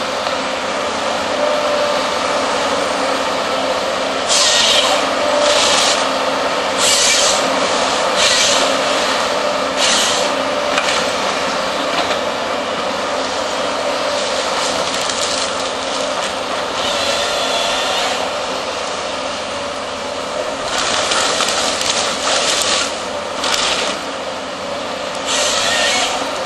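Volvo excavator's diesel engine and hydraulics running steadily while the AFM 58 Husky harvester head works timber, with repeated short, high hissing bursts as the head's hydraulics act, coming in two clusters with a steadier stretch between.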